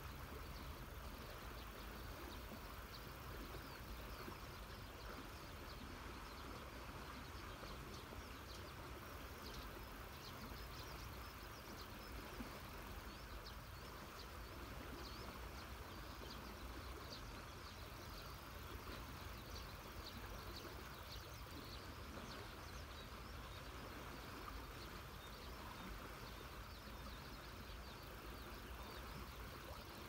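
River water flowing with a steady, even rush, with faint high chirps scattered over it.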